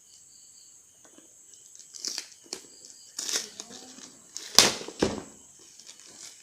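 A delivery packet being torn open and its wrapping handled: scattered crinkling and tearing from about two seconds in, with two sharp, louder rips a half second apart near the middle.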